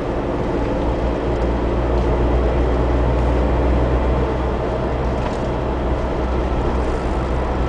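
Steady car engine and tyre-on-road noise heard from inside the cabin of a moving car, a low, even rumble.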